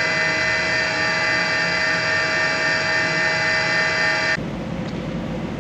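Gerber Sabre 408 CNC router spindle running steadily at 6,000 rpm with a high, even whine. The whine cuts off abruptly about four seconds in, leaving a lower steady rushing hum.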